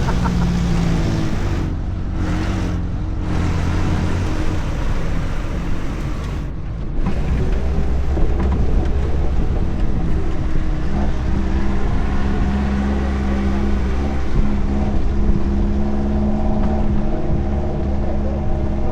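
Suzuki Jimny's engine running under load while the 4x4 drives on, with a steady drone. The sound eases off briefly about two, three and seven seconds in, then picks back up.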